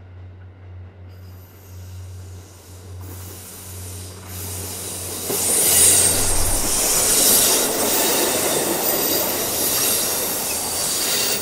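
Kiya 95 series diesel track-inspection train approaching round a curve and passing close by, its engine drone under the rising rumble of wheels on rail, with wheel squeal on the curve. It is loudest about six seconds in, as the cars go past.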